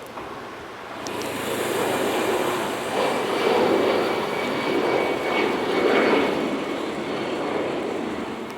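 A jet airliner's engines at take-off power as it passes. The rumble swells about a second in, is loudest through the middle with a faint steady whine on top, then fades toward the end.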